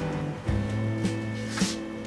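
Background music: a guitar-led track with sustained notes and a light, steady beat.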